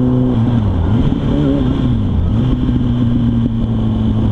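Motorcycle engine running on the move, its pitch dropping and rising over the first couple of seconds and then holding steady, over a constant rush of wind noise.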